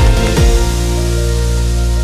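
Background electronic music. The beat stops about half a second in, leaving a held chord over a steady bass.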